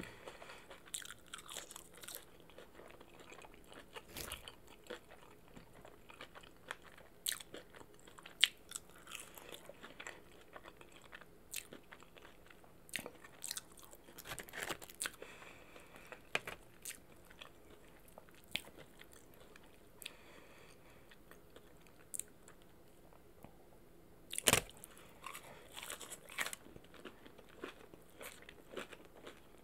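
A person chewing and biting into crispy fried boneless chicken wings and fries, with irregular, scattered crunches. The sharpest crunches come about 8 seconds in and again about 24 seconds in.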